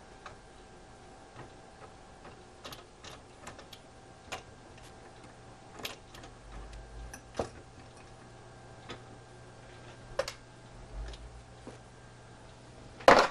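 Irregular small metallic clicks and taps of a hand tool and fingers working the hands off a longcase clock's painted dial, with one louder clatter near the end.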